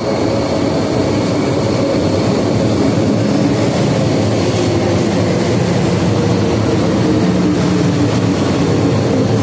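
MTR M-Train (Metro-Cammell electric multiple unit) running into the platform: a steady rumble of wheels and running gear with a steady high whine over it.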